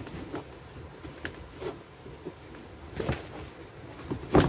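Handling noise from a fabric planter bag and potting soil as a durian seedling is set in place by hand: soft rustling and scraping with a few short knocks, the loudest near the end.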